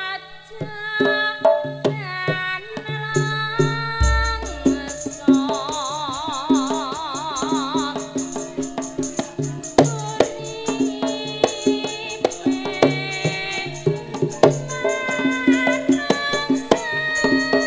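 Javanese gamelan ensemble playing: bronze gong-chimes and metallophones struck in quick patterns over kendang drum strokes. A deep gong stroke sounds about four seconds in, followed by a long wavering sung note from a sinden.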